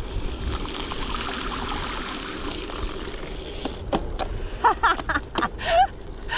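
Riding noise of a gravel bike on a wet road: tyre hiss and wind on the action camera's microphone. Several sharp clicks and a few short chirping calls come in over the last couple of seconds.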